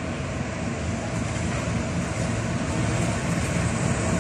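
Twin RGE-24 diesel-electric locomotives approaching at the head of a freight train: a steady low engine rumble that grows slowly louder as they draw near.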